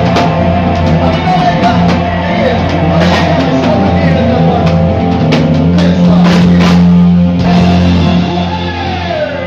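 Live rock band playing loud, with electric guitar, bass and drum kit. Near the end a note slides down in pitch.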